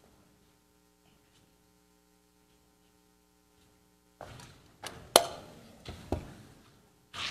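Steady low electrical hum with faint room tone, then about four seconds in a quick cluster of knocks and sharp clicks: one loud sharp click, a dull low thump a second later, and a short rustle near the end.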